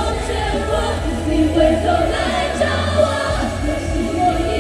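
Live pop music from an idol group: several voices singing together in unison over a backing track with a heavy, steady bass that drops out briefly a little past the middle.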